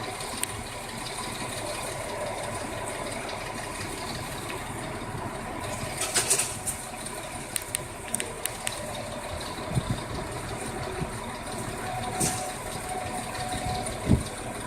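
An engine running steadily, with a run of sharp clicks and knocks about halfway through and a low thump near the end.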